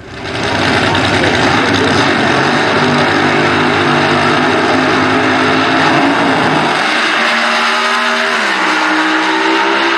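Funny car drag-racing engines at full throttle during a run down the drag strip, loud and steady, the engine note stepping down in pitch twice near the end.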